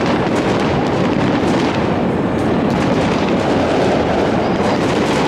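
Many New Year's fireworks going off at once: a steady, unbroken din of overlapping bangs, pops and crackles.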